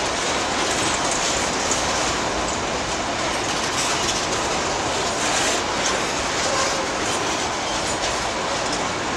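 Freight train boxcars rolling past close by: a steady noise of steel wheels on the rails, with occasional clacks.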